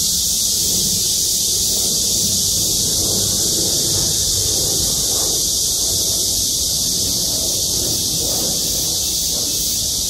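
A chorus of many cicadas singing in the trees: one continuous, unbroken high-pitched buzz, over a steady low rumble.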